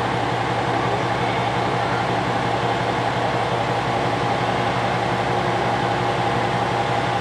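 Steady hum and whir with a constant mid-pitched tone, from a conventional-line electric train standing at a station platform.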